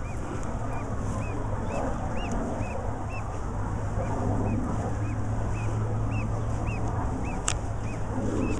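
Canada goose goslings peeping: short, high chirps repeating about twice a second, over a steady low hum. A sharp click comes near the end.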